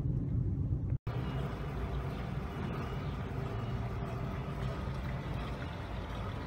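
Car interior road noise for about a second, then an abrupt break, followed by a steady rushing hiss of gasoline flowing from a pump nozzle into a car's fuel tank.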